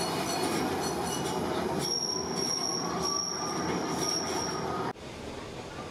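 Tram running on its rails with a rumble, and a high, steady wheel squeal about two seconds in. The loud running sound cuts off abruptly about five seconds in, leaving a quieter background.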